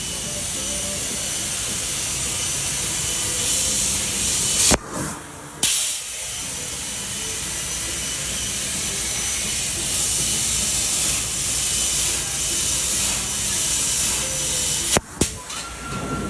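CNC plasma cutting torch hissing steadily as it cuts aluminium sheet. The hiss cuts out with a sharp click about five seconds in and comes back about a second later, and breaks off briefly again near the end.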